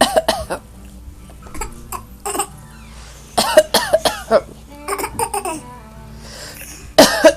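An adult and a small child coughing in turn, in a string of short fits every second or two, the child copying the adult's cough.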